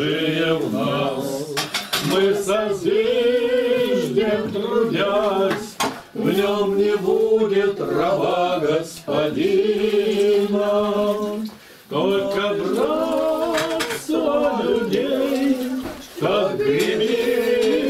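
Voices singing slowly in long held phrases, with short breaks between them, over the clatter of dishes and cutlery being cleared and stacked.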